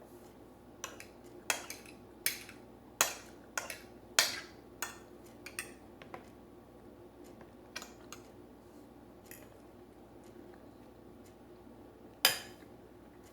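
Cutlery clinking against a plate during a meal: a string of sharp separate clicks through the first half, then a quiet stretch and one louder clink near the end.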